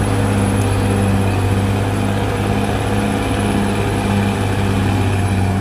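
Bulldozer's diesel engine running steadily, with a low throb about twice a second.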